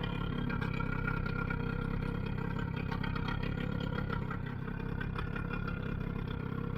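A boat engine running steadily at an even pitch.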